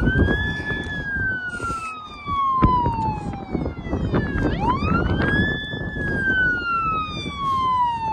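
Siren of a Tomah DNR fire truck wailing as the truck approaches. Each cycle climbs quickly, then slides slowly down over about four seconds, with two full wails and a third starting near the end. A low rumble runs beneath it.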